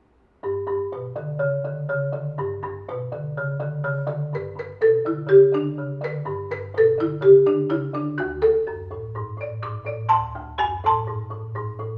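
Majestic marimba played by three people with yarn mallets: a quick melody of struck wooden-bar notes over held low bass notes, starting about half a second in.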